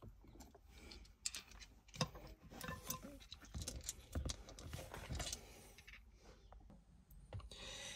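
Faint, scattered clicks and small metal taps from a size 10 Allen-type hex bit being handled and fitted into the steering wheel's centre bolt.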